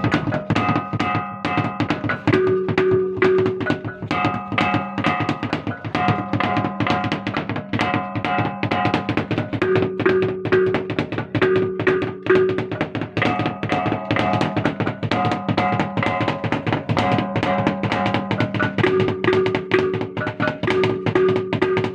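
Traditional drums beaten in a fast, continuous rhythm while a set of gongs rings pitched tones over them in a repeating pattern.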